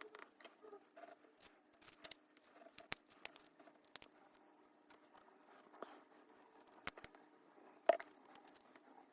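Faint, scattered clicks and taps of small tools and cardboard jigsaw puzzle pieces being handled for a glue repair, the sharpest click near the end.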